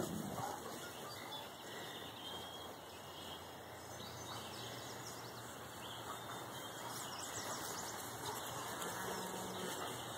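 Outdoor pasture ambience: a steady insect hum, with a few short bird chirps about halfway through.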